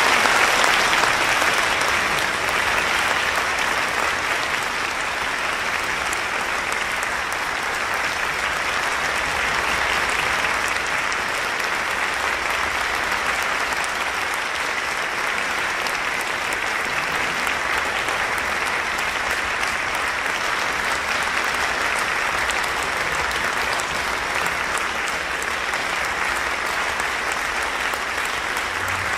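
Concert-hall audience applauding steadily, loudest right at the start.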